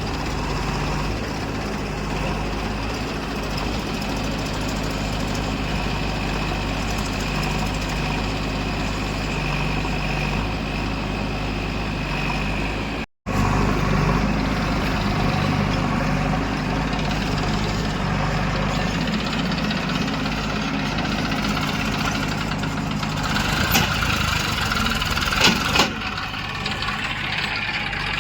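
Heavy diesel engine running steadily at an even speed, with a short break of silence about halfway through and a few sharp knocks near the end.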